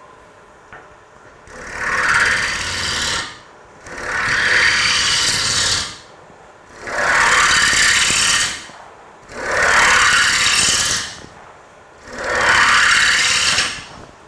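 Bowl gouge cutting across the face of a spinning Bradford pear bowl blank on a wood lathe, levelling the surface in a rough cut: five passes of about two seconds each, loud rasping while the tool is in the wood, with the lathe running quietly in the short pauses between.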